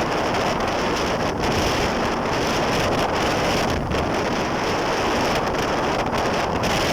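Steady wind buffeting the microphone with rushing water, as heard while riding a jet ski across the sea.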